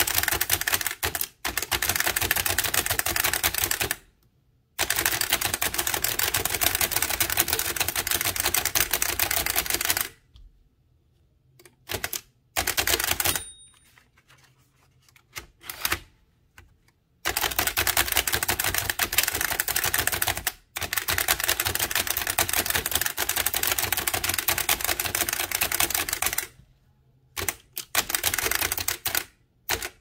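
Bennett typewriter, a tiny single-element machine with a type cylinder, clattering under fast touch typing: long runs of rapid key strokes broken by pauses of a few seconds, with only a few short bursts of strokes in the pauses.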